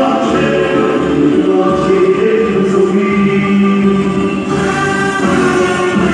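Bumba-meu-boi music: a chorus of voices singing a toada over a steady beat.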